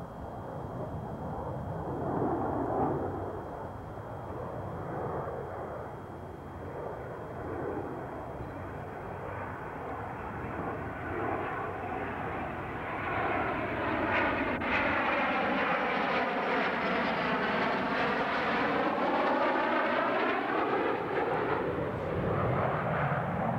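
F/A-18 Hornet jet on landing approach with gear down, its engines growing louder as it comes in low and passes close by. Over the last ten seconds the jet whine sweeps down in pitch and back up as it goes over.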